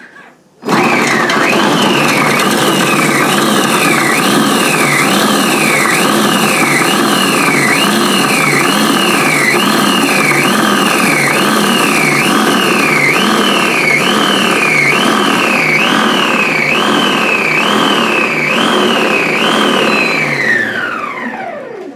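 Moulinex Cuisine Companion food processor running on Pulse with its mini chopping bowl, chopping carrot, onion, celery and garlic for a soffritto mix. The motor starts just under a second in with a high whine that rises and drops about once a second for roughly twenty seconds, then winds down with a falling pitch near the end.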